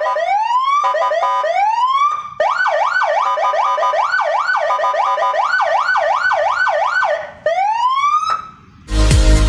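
Custom Senken electronic patwal (police escort) siren cycling through its tones. Slow rising wails alternate with a short stepped two-note tone, then a fast up-and-down yelp about two sweeps a second runs for several seconds, and it ends on one more rising wail. Electronic dance music comes in near the end.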